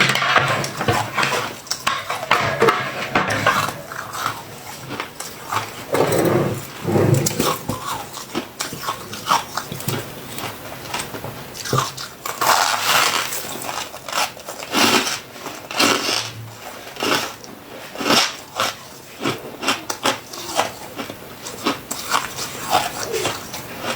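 Close-miked crunching and chewing of soft freezer frost, a run of many short crunches, with light clinks of cutlery in between.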